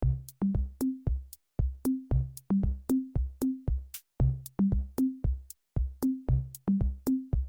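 Electronic background music: a drum-machine beat of kick drum and short bass notes about twice a second, with crisp percussion ticks between them.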